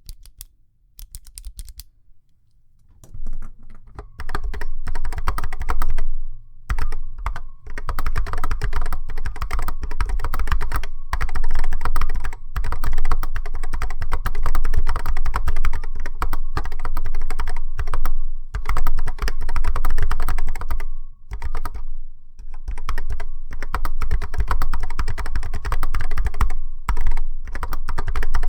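Typing on a vintage Apple M0110-A keyboard with Alps SKCC Tall Cream switches. A few scattered keystrokes come first, then fast continuous typing from a few seconds in, with short pauses. The springs ping, and the hollow plastic case and thin mounting plate make it worse, so a thin ringing tone runs under the key clicks.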